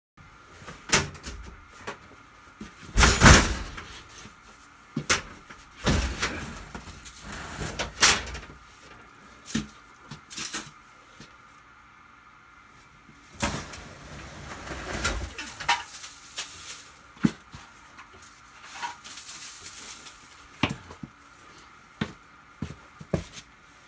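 Irregular knocks, thumps and scraping clatter, with the loudest thump about three seconds in and a longer stretch of rustling and scraping near the middle.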